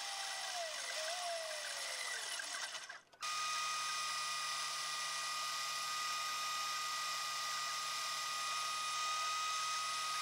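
Small electric power tool motor running. For the first three seconds its pitch sags and recovers, as under changing load. After an abrupt cut it runs steadily with a constant whine.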